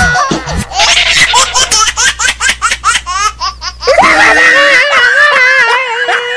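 Rapid bursts of laughter for about four seconds. Then a long, wavering cry of pain as a syringe needle goes into a man's arm.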